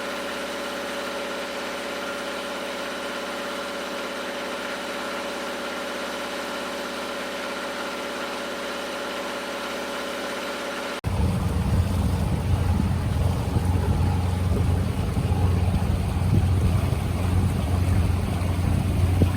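Steady motor cruiser engine drone with a fixed pitch. About 11 seconds in there is an abrupt cut to a much louder, deeper engine rumble of the boat underway, with wind on the microphone.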